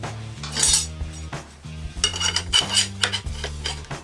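Steel clinking and scraping from a vise-mounted ring roller as a flat steel strip is worked through it: a short scrape about half a second in, then a run of clinks and scrapes from about two seconds in, over background music.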